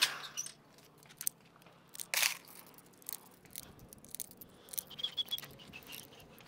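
9mm rounds pressed one by one into a pistol magazine: a string of small irregular clicks, with a louder rough scrape about two seconds in.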